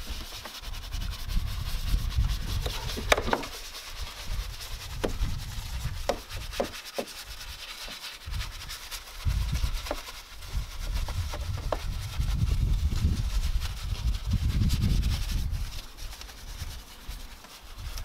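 Stiff detailing brush scrubbing foamed cleaning product over a plastic engine cover: an uneven rubbing and scratching, with a few sharp clicks. Irregular bursts of low rumble run underneath and are the loudest part.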